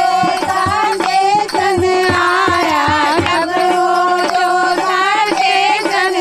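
Women singing a Hindi devotional folk song (bhajan) in a wavering melody, with a steady beat of dholak drum strokes underneath.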